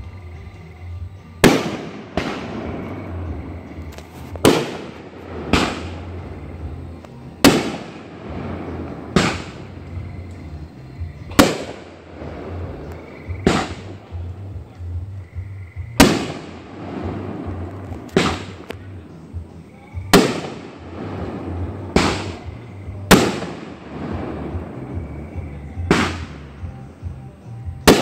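Fireworks display: aerial shells bursting in loud bangs every second or two, about fifteen in all, each trailing off in echo.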